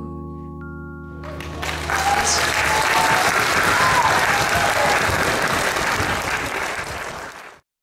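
The song's last held chord dies away, then an audience applauds from about a second in. The applause cuts off suddenly near the end.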